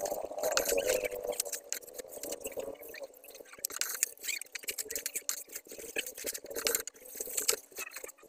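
Plastic bags and snack packets crinkling and rustling, with many small clicks and taps, as goods are handled and packed at a shop counter. Faint voices murmur underneath.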